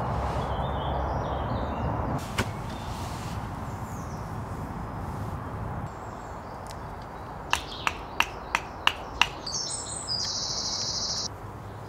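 A knife carving a wooden stick, making about six crisp cutting strokes in quick succession partway through, roughly three a second. Small birds chirp and sing over steady woodland ambience.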